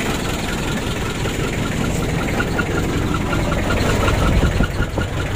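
Mitsubishi L300's four-cylinder diesel engine idling rough, with a loud, regular ticking knock about four times a second. The mechanic judges the engine badly worn, with a severe compression leak and heavy blow-by.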